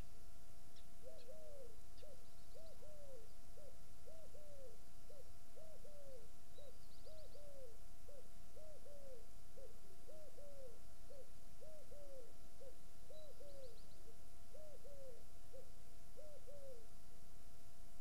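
A pigeon cooing over and over in a steady run of low coos that stops near the end. A small bird gives three faint, brief high trills in the background.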